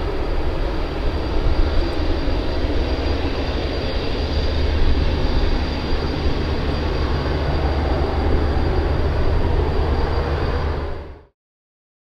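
Jet engines of an ANA Boeing 787-8 running steadily as the airliner moves along the ground: a continuous deep rumble with a faint high whine. It fades out quickly near the end.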